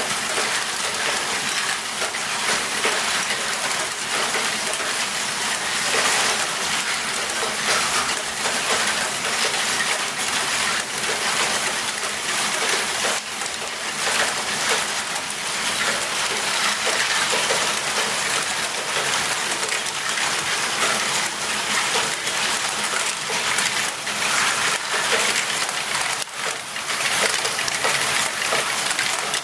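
Many small plastic Lego balls rolling and clattering through a Lego great ball contraption: a dense, steady patter of countless small clicks as the balls run along the tube rails and through its mechanisms.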